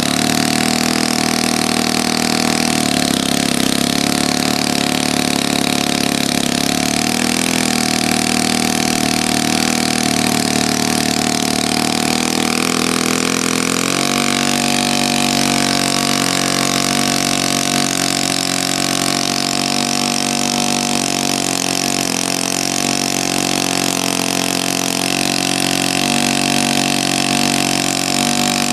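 Conley 120 dual-overhead-cam four-valve four-stroke glow engine running steadily with a propeller on a test stand. Its note shifts about halfway through as it picks up speed. The engine's cam timing is off, so it does not reach its peak RPM.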